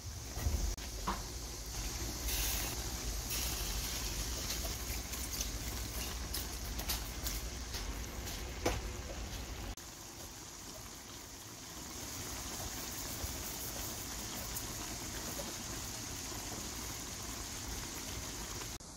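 Chicken pieces in thick gochujang sauce bubbling and sizzling in a pan, with many small pops and crackles. About ten seconds in, it turns abruptly quieter, then settles into a steadier simmer.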